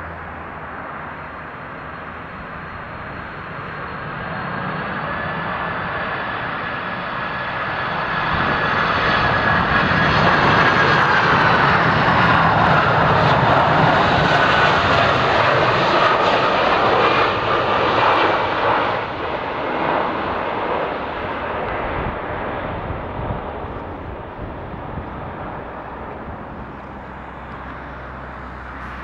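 Boeing 747-400 airliner on final approach, its four General Electric CF6 turbofan engines running. The engine noise and a high whine grow louder as it flies low overhead about halfway through, the whine drops in pitch as it passes, and the sound then fades as it heads down the runway.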